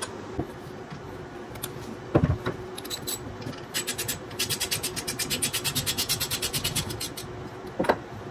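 Hand work on an electric dirt bike's motor mount and wiring. There are two sharp knocks, one about two seconds in and one near the end, and between them a fast, even run of clicks, around a dozen a second, lasting about three seconds, over a faint steady hum.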